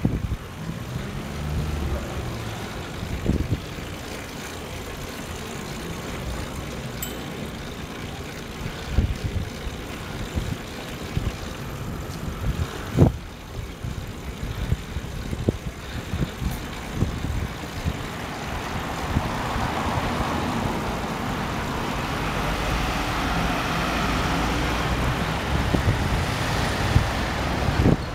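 Riding a cycle-hire bike through city traffic: a steady low rumble of wind and road noise, with cars passing and a few sharp knocks and rattles as the bike goes over bumps. The traffic hiss grows louder over the last third.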